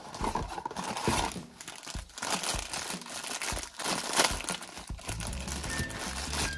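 A small cardboard blind box being pulled open at its glued flap, then the black plastic bag inside being torn and crumpled by hand: irregular crinkling and tearing with sharp crackles.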